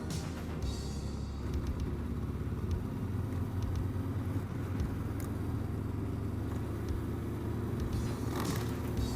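Enduro motorcycle engine running steadily while riding, with a few short clicks and knocks over it.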